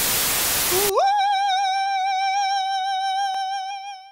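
Television static hiss for about the first second, cut off abruptly. Then a single voice slides up into one long high note held with vibrato, fading out near the end, with a brief click about three seconds in.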